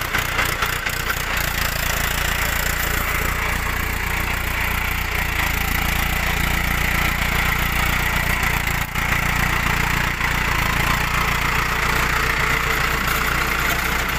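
Tractor engine running steadily, driving a tractor-mounted earth auger (post hole digger) as it bores into the soil.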